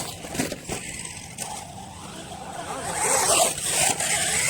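Electric RC monster truck running on dirt, its motor whine rising and falling in pitch in the second half, with a few sharp knocks early on.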